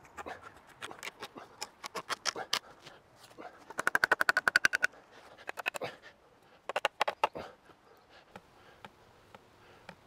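Wooden dowels and poles of a handmade press frame knocking and rattling against each other: scattered sharp wooden clicks, a fast rattle of rapid knocks lasting about a second around four seconds in, and another short clatter near seven seconds.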